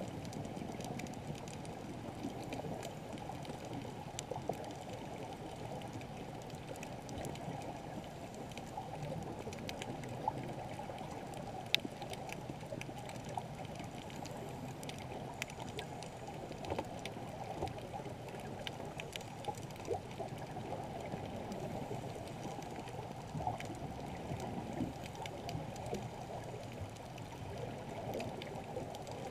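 Muffled underwater ambience just below the surface of a coral reef: a steady low rush of moving water, with scattered faint clicks and a couple of sharper ones near the middle.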